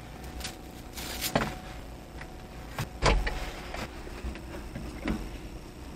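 Scattered clicks, knocks and light rustles of hands handling a plastic mirror-style dash cam unit, with a low thump about three seconds in.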